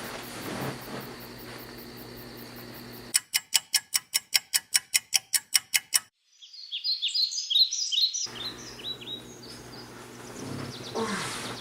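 A steady hum, then about three seconds of sharp, even clicks at roughly five a second. The clicks stop suddenly and birds chirp for about two seconds, then the steady background noise returns.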